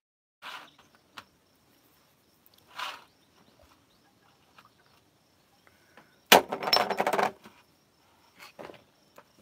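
Objects being handled on a table: a couple of short rustles or scrapes, then a loud clatter of rapid clicks lasting about a second, starting about six seconds in.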